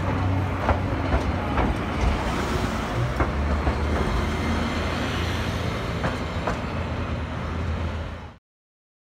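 Passenger car of the Botchan train replica rolling along street tram rails: a steady low rumble with irregular clacks as the wheels cross rail joints. The sound fades to silence about eight seconds in.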